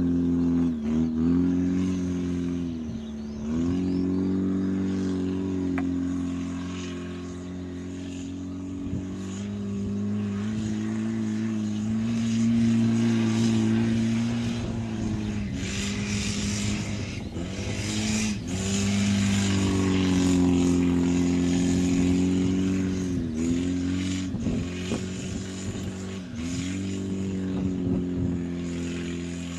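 Toyota 4K 1300cc four-cylinder engine of a converted Corolla beach buggy, held at high revs while the car slides around on sand. The revs drop briefly and climb back again many times.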